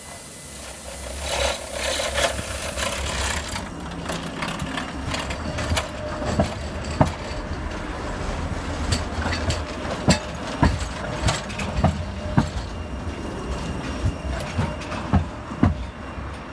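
Class 399 Citylink electric tram-train passing close by and pulling away, with a steady low hum throughout. A hissing rush rises about a second in as it comes alongside. From about six seconds on, a run of sharp, irregular clacks comes from its wheels crossing the rail joints and points.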